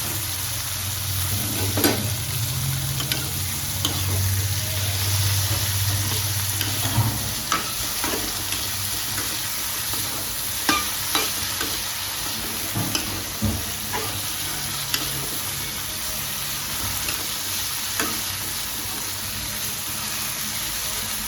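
Tomatoes, onion, chilli, garlic and ginger sizzling in hot ghee in a pan, with a spatula stirring and clicking against the pan now and then. A low hum sits under the sizzle for the first seven seconds or so.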